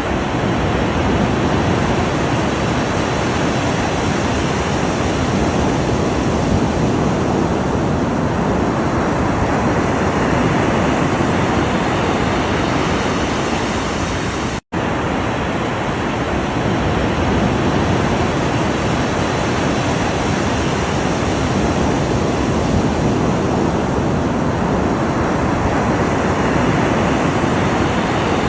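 Ocean surf: a steady, dense rush of waves with slow swells, broken by a split-second cut to silence about halfway through.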